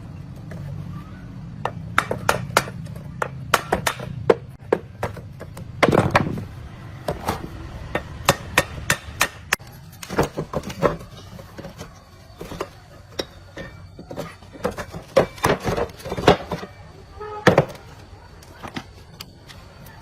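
Irregular sharp knocks and taps in clusters, like hand-tool work such as hammering, over a low steady hum for the first few seconds.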